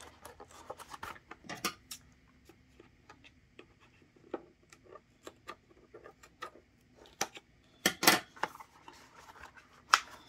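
Scissors snipping and working at a white paperboard box, with scattered light clicks and taps of the cardboard being handled. A louder, brief rustle and scrape comes about eight seconds in.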